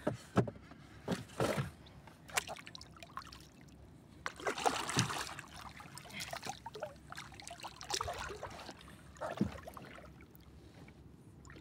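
Sea water lapping and sloshing against the hull of a small outrigger boat, with a few scattered knocks and a brief louder wash about four to five seconds in.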